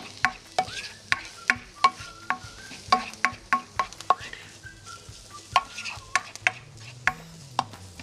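A spoon stirring and clinking against a bowl or pot of peeled tomatoes, in quick irregular taps that each ring briefly, over a faint sizzle.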